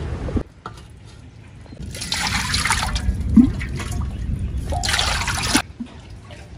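Water poured and splashing into a metal wok, in two pours: one about two seconds in lasting about a second, and a shorter one near five seconds.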